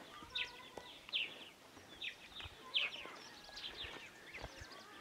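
Birds chirping: short, high, falling chirps repeated about once or twice a second, faint over a quiet outdoor background.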